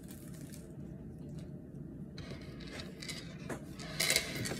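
Gold heavy-link chain clinking and rattling as it is lifted and handled, in a short cluster of sharp clicks near the end after a single faint click.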